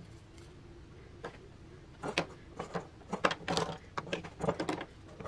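Plastic spring clamps being squeezed open and snapped onto a wooden ring on a sheet-metal duct flange. There are a few light clicks, then from about two seconds in a quick run of sharp clicks and knocks.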